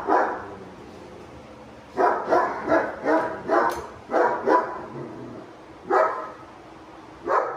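German Shepherd barking reactively at another dog: a quick run of about eight barks a couple of seconds in, then two single barks near the end.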